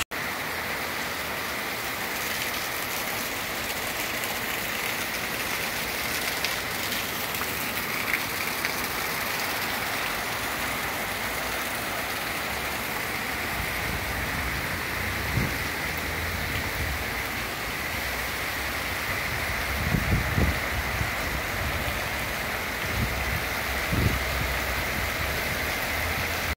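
Heavy rain falling steadily, an even hiss, with a few brief low bumps and rumbles in the later part.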